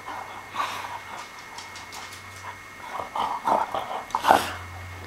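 A dog breathing and snuffling close by in short noisy bursts, with a cluster about three seconds in and the loudest just after four seconds.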